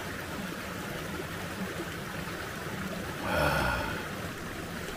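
Steady rushing of a shallow mountain stream over rocks. About three seconds in, a man lets out a short breathy "ah" after a sip of the cold water.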